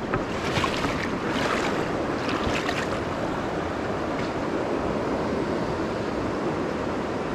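River water rushing steadily over a stony riffle.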